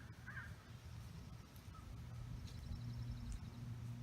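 A crow caws once near the start, over a steady low hum. A faint, rapid high trill follows about two and a half seconds in.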